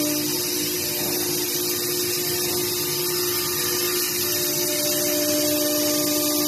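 A machine running steadily: a constant loud hiss with several steady humming tones underneath.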